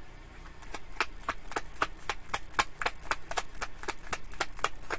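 A deck of tarot cards being shuffled by hand, the cards slapping and clicking against each other about four or five times a second.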